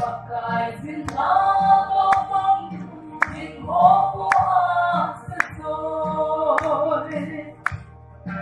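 Voices singing a song over a steady beat: a sharp click about once a second and a low thump twice as often.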